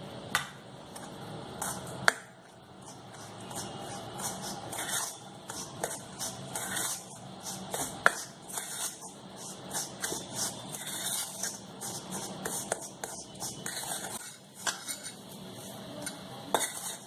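Metal spoon scraping and clinking against a stainless steel mixing bowl as butter is worked into desiccated coconut and powdered sugar, in many short strokes, with a sharper clink about two seconds in.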